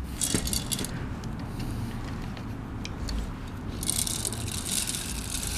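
Handling noise from a pan of trout pellets in water being set up to boil: a few clicks and rustles at first, then a longer hissy, crackly rush of noise about four seconds in.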